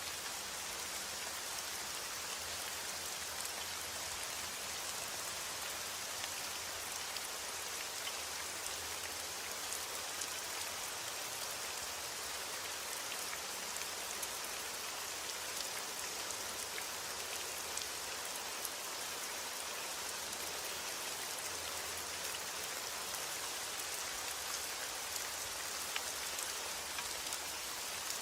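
Steady rain falling, a constant even hiss with many small drop ticks.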